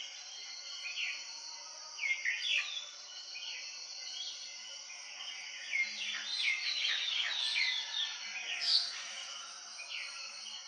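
Morning bird chorus: many birds chirping and calling in quick, overlapping notes, over a steady high insect hiss.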